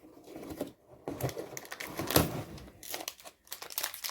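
Cardboard and plastic packaging crinkling and tearing in irregular rustles as a small toy box is opened by hand.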